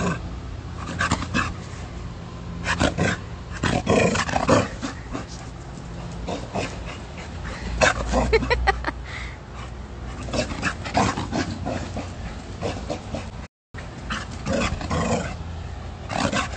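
Chow chow growling and grunting in play while it runs about with the zoomies, with panting and scuffling close by. The rough growls come in bunches, strongest about four, eight and fifteen seconds in.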